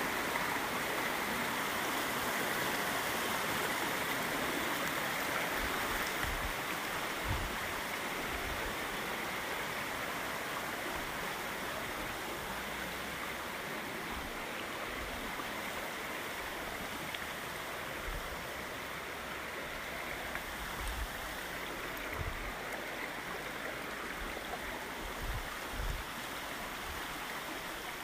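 Steady rushing noise, like running water, slowly growing a little quieter, with a few faint low thumps.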